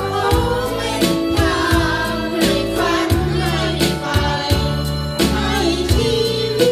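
A group of several voices, mostly women, singing together into handheld microphones over an amplified backing track with a steady beat, karaoke-style.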